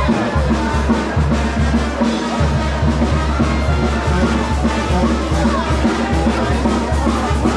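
Music with a steady, deep drum beat.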